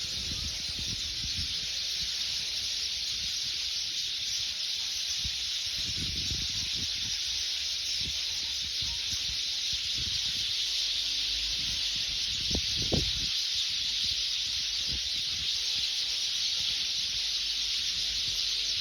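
A large flock of house sparrows chirping all at once, a dense, unbroken high-pitched chatter. Low rumbles and thumps from wind or handling come and go underneath, the loudest about two-thirds of the way through.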